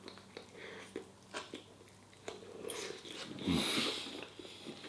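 A person chewing a mouthful of food, with small mouth clicks and a breathy exhale about three and a half seconds in.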